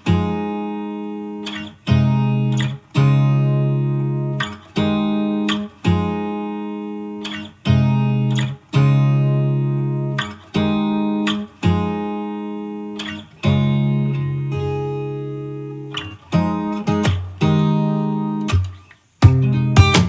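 Background music: strummed acoustic guitar chords, a fresh strum about every second, each ringing out before the next.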